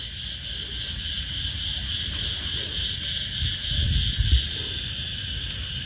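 Insects chirping steadily in a fast, even pulse, about five a second. A few low dull thuds come about four seconds in.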